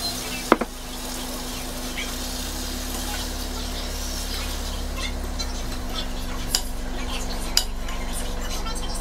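Food sizzling in a cooking pot while it is stirred with a spoon, with clinks of the utensil against the pot: one sharp clink about half a second in and a few lighter ones later.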